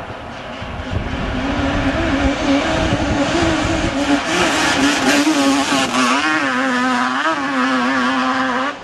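Sport ATV engine running hard at wide-open throttle under the load of a steep dirt hill climb, its pitch wavering up and down. It gets louder about a second in and cuts off suddenly near the end.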